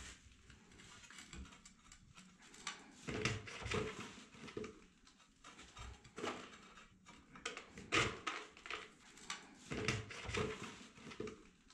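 A large ceramic wall tile being handled and shifted into position against the neighbouring tiles and the wall, with faint irregular scrapes and light knocks of tile edges and gloved hands.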